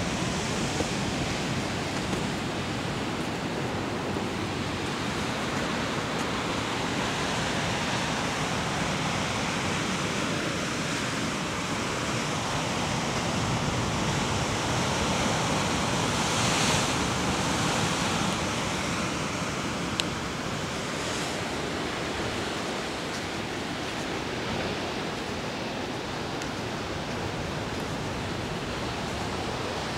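Steady rush of ocean surf breaking on rocks below, mixed with wind, swelling slightly about halfway through.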